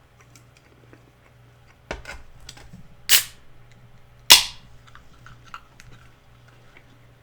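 Crisp crunching of fried chicken flautas being bitten and chewed close to the microphone: three loud sharp cracks a little over a second apart, with smaller crackles between.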